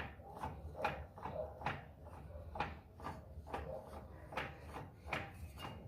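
Faint, regular clunking from the inner CV joint of a 2005 Fiat Siena HLX's right front driveshaft as the wheel is rocked back and forth by hand with the car in first gear, about two light knocks a second. The owner is unsure whether it shows play in the joint or is normal.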